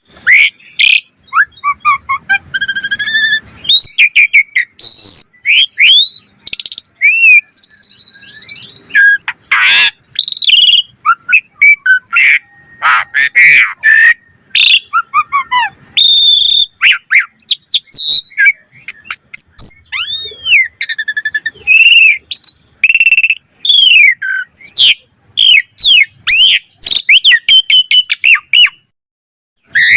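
Asian pied starling (jalak suren) singing a fast, varied song of whistled glides, chirps and harsh rasping notes, almost without a break, pausing briefly near the end.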